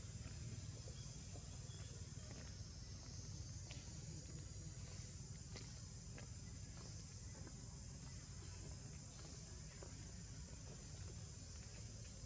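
Steady, faint insect chorus, a constant high buzz, over a low background rumble, with a few faint ticks.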